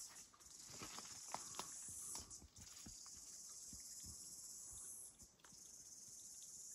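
Footsteps on the forest floor, soft irregular crunches and knocks on leaf litter and twigs, over a steady high hiss.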